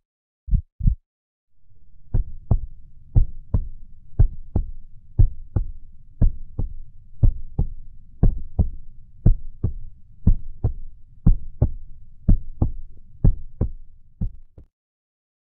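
Heartbeat sound effect: paired low thumps, lub-dub, about once a second over a faint low hum, stopping shortly before the end. A few single thumps come first.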